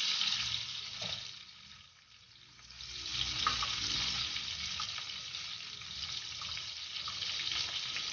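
Oil sizzling in a wok as strips of yellow chives stir-fry in it: a steady hiss that dips to faint about two seconds in, then comes back.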